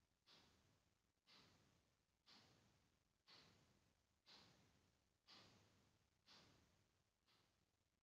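Near silence, with a faint soft tick about once a second, each fading away before the next.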